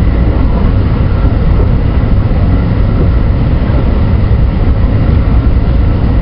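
JR West 223 series 2000-subseries electric multiple unit running along the line, heard from just behind the driver's cab: a loud, steady rumble of wheels on rail.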